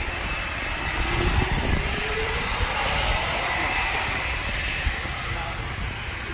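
Twin turbofan engines of a Boeing 767-300 running as the jet rolls for departure: a steady rumble with a high whine. A tone rises in pitch between about one and three seconds in.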